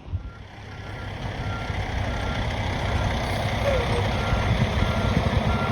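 Backup alarm of heavy demolition machinery beeping steadily at one pitch, about once every three-quarters of a second, starting about a second in, over a diesel engine rumble that grows louder.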